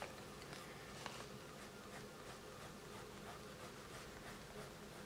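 Faint, soft scratching of a coloured pencil shading on paper.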